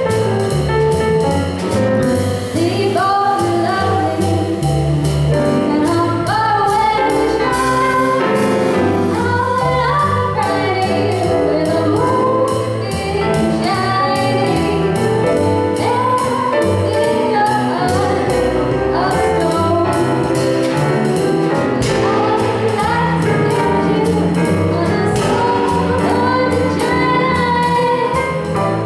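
Live jazz: a female vocalist singing a melody into a microphone, backed by grand piano, double bass and a drum kit keeping a steady cymbal beat.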